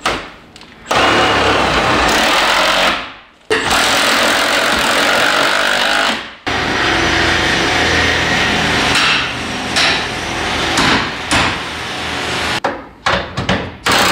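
Cordless impact wrench rattling as it drives bolts on the car's steel body, in three long runs of a few seconds each with short breaks, then a few short bursts near the end.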